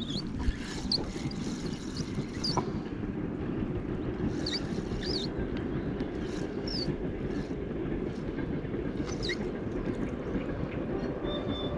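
Wind rumbling on the microphone, with short high bird chirps a few times.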